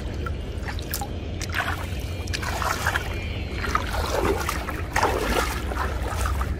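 Water splashing and dripping as a fishing net is pulled up out of shallow water and a person wades through it, in irregular bursts that are thickest around three seconds in and again around four to five seconds in, over a steady low rumble.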